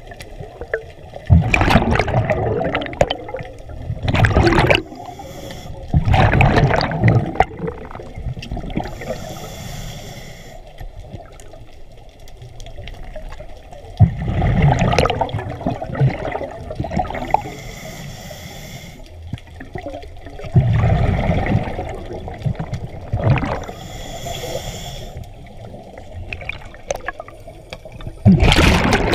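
Scuba diver breathing underwater through a regulator. Loud rushes of exhaled bubbles come every few seconds, about seven times, and a faint high hiss of the inhale falls between them.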